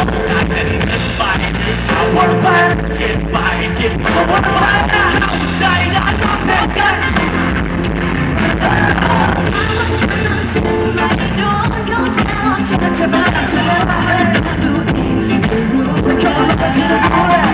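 Live pop song played by a band through the PA, with a male singer's lead vocal into a handheld microphone.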